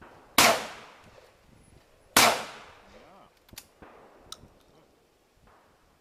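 Two shotgun shots from an over-and-under shotgun fired at a flying clay target, a little under two seconds apart, each ringing out briefly. A few light clicks follow.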